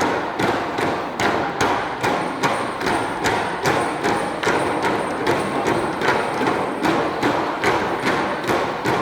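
Bamboo poles of a bamboo-pole dance knocked together in a steady rhythm, about two to three hollow knocks a second.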